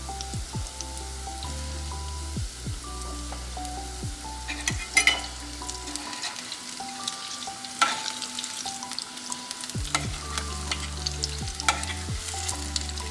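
Kofta balls deep-frying in hot oil, a steady sizzle broken by sharp pops and crackles, the loudest just before 5 seconds, near 8 seconds and late on. Soft background music with a bass line plays underneath, its bass dropping out for a few seconds in the middle.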